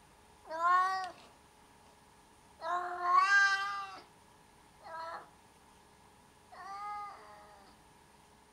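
Siamese kitten meowing four times, each a short pitched call; the second is the longest and loudest, the third brief, and the last fainter.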